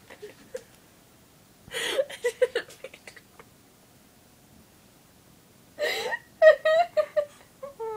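A woman crying into her hands: a sharp breathy gasp followed by short, broken sobs, then a pause, then a second gasp and a run of high whimpering sobs that slide down in pitch.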